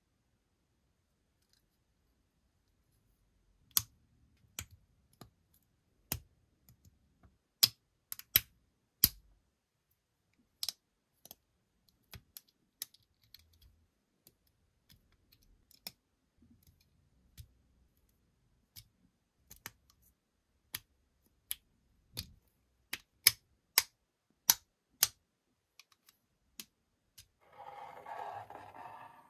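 LEGO bricks clicking and snapping together as small plastic pieces are pressed on and fitted, many sharp separate clicks at irregular intervals. Near the end comes a brief rolling rumble from a small LEGO truck's plastic wheels rolling across the tabletop.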